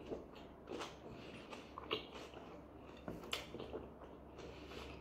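A person chewing a mouthful of flatbread and grilled minced meat, with soft, irregular wet mouth clicks and smacks.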